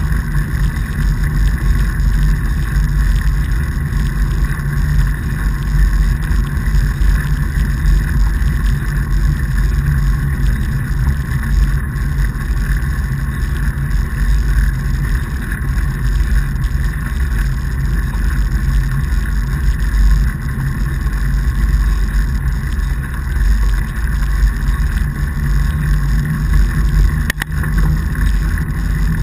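Fat bike riding on a packed-snow path: a steady low rumble of the wide tyres rolling over the snow, mixed with wind noise on the microphone.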